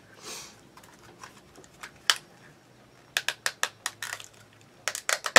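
A sniff near the start, then a run of sharp clicks and taps from a plastic wax-melt clamshell being handled.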